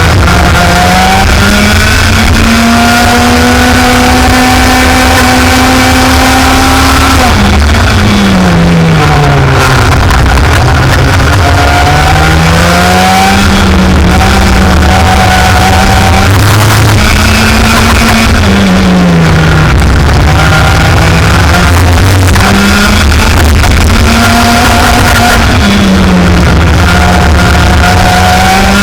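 Racing kart engine revving up and down in pitch, climbing and holding on straights and dropping off sharply several times as it slows for corners, under loud music.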